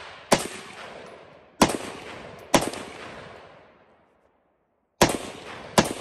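Aero Precision AR-10 semi-automatic rifle in .308 firing five shots, each with a long echoing tail. Three come about a second apart, then after a second of near silence two more follow in quick succession near the end.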